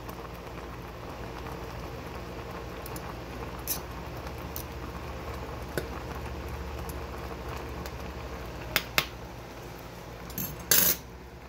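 Ramen boiling in a Jetboil MiniMo cooking cup over its gas burner: a steady bubbling with the burner's low rush underneath. A fork stirring the noodles clicks against the pot a few times, with a louder clatter near the end.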